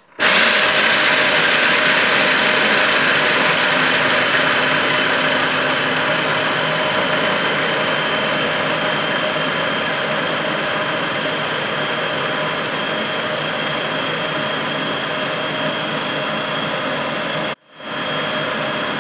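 Kenwood food processor motor running at full speed, its blade grinding roasted peanuts into a thick paste; it starts suddenly and runs steadily with a faint high whine. Near the end it cuts out for a moment and starts again.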